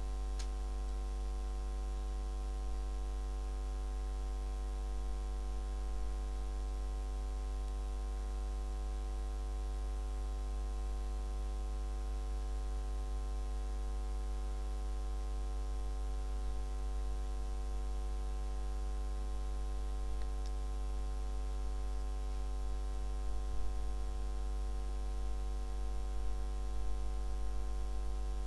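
Steady electrical mains hum with a stack of overtones, unchanging throughout, with a few faint clicks near the end.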